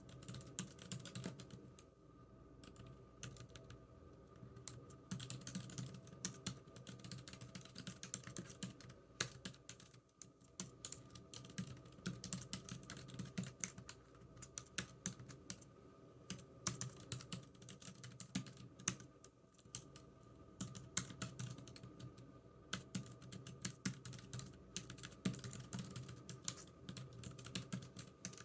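Computer keyboard typing in quick runs of keystrokes, broken by brief pauses.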